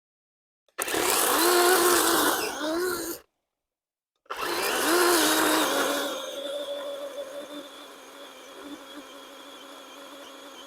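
DeWalt battery electric chainsaw running in two loud bursts of about two seconds, each starting and stopping abruptly, its motor pitch sagging and recovering as the chain cuts into Bradford pear wood. A fainter steady hum follows.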